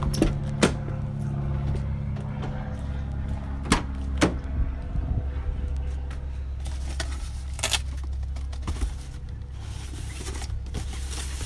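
Ford F-250 cab door latch clicking as the handle is pulled and the door opens, then a few more sharp knocks inside the cab, over a steady low hum.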